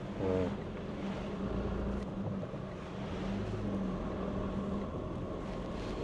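Force Gurkha's four-cylinder diesel engine running steadily with tyre and road noise, heard from inside the cab while driving in two-wheel drive on a snowy road.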